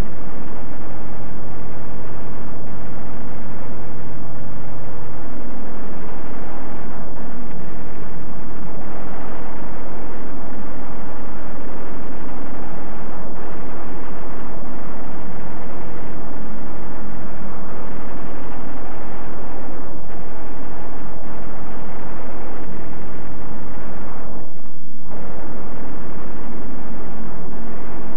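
Loud continuous roar of a propeller fighter plane's engine at low level, with a few sharp cracks of gunfire or explosions mixed in. The roar briefly drops out about three seconds before the end.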